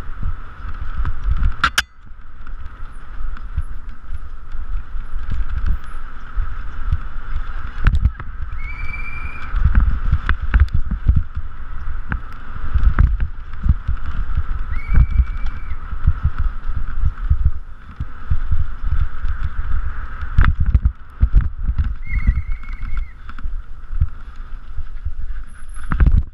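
Downhill mountain bike rattling and knocking over roots and bumps on a dirt forest trail, heard from a helmet-mounted camera, with rushing wind on the microphone. Three short high squeals cut through: one about a third of the way in, one around the middle and one near the end.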